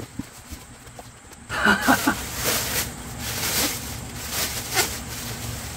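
Plastic bag crinkling and rustling as a welding helmet wrapped in it is handled and lifted out of a cardboard box, with repeated sharp crackles. A brief vocal murmur comes about a second and a half in.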